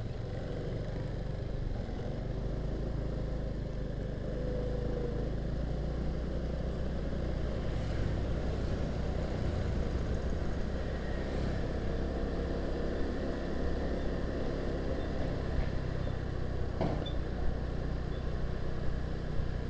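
Motor scooter running along a town street at low speed: a steady engine hum under road and wind rumble, picked up by a helmet-mounted microphone, getting a little louder after about seven seconds.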